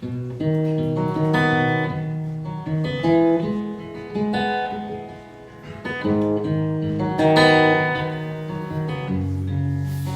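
Acoustic guitar playing the instrumental intro of a song, strummed and picked chords ringing out, with a brief lull about halfway through.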